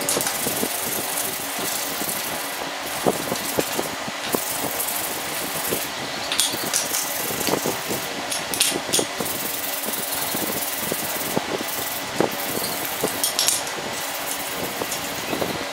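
Scattered light metallic clicks and knocks as steel bracket pieces, bolts and spacer rods are handled and fitted together by hand on a tile floor, over a steady background noise.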